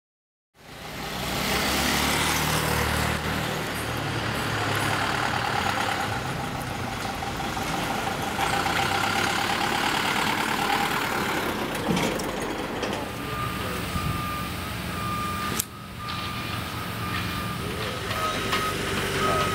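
Flatbed truck engine running as the truck drives, then a reversing alarm beeping at an even pace from about two-thirds of the way in.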